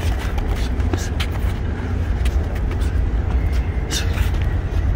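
Boxing gloves slapping and landing a few times in light sparring, sharp hits near the start, about a second in and again near the end, over a steady low rumble.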